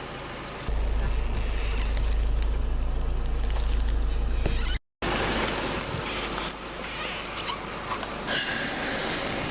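Car rolling slowly under a heavy low rumble, with faint crackles. The sound stops dead just under five seconds in, then a similar car sound starts again.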